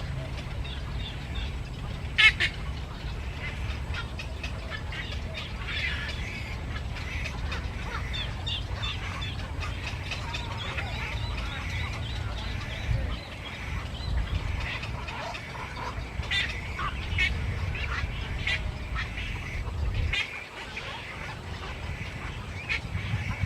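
A flock of birds calling, many short overlapping calls throughout, with one sharp loud call about two seconds in, over a steady low rumble.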